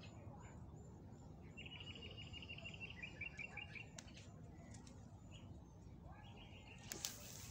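Small birds chirping in quick, evenly spaced runs of notes, twice in a row, over a faint steady background noise. A brief rustle comes near the end.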